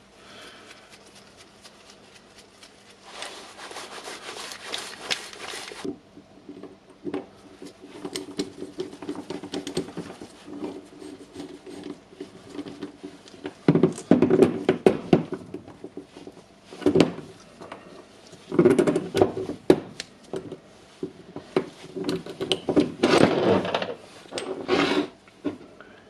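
Metal parts clinking, knocking and scraping on a workbench as steel plates are set over a hammer drill's spring and washer and pressed down to seat a retaining ring. There is a short scraping rub early on, then clusters of rattling knocks through the second half.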